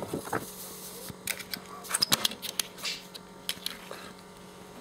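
Sheets of paper being handled and swapped on a clipboard: scattered rustles, crinkles and short clicks, over a faint steady hum.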